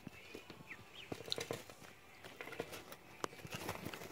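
Ducklings pecking at a mirror and scrabbling in wood shavings and against a cardboard box: scattered light taps and scratches, with a few faint peeps near the start.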